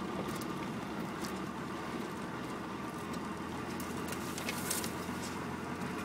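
Land Rover Discovery Mk1 driving slowly along a dirt track, heard from inside the cab: a steady engine drone with scattered light clicks and rattles.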